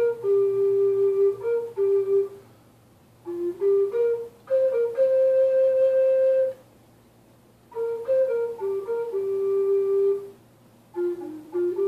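Native American flute playing a slow melody in three breathy phrases with short pauses between them. The middle phrase ends on a long held higher note, the third on a held lower one, and a new phrase starts near the end.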